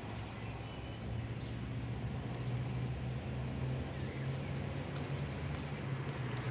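Street ambience: a low steady hum of road traffic that grows slowly louder, with a few faint bird chirps.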